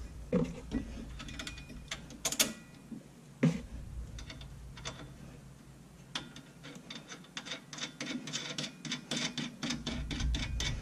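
Small metal clicks and clinks as nuts and washers are started by hand on the steel U-bolts clamping an anti-roll bar mount to a rear axle. A few louder knocks come in the first few seconds, and a quick run of clicking near the end.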